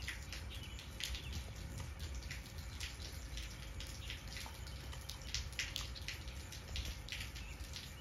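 Light rain falling, with irregular drips and splats of water a few times each second over a low steady rumble.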